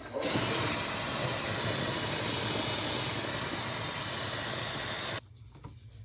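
A steady hiss of gas or spray released under pressure, lasting about five seconds and cutting off abruptly.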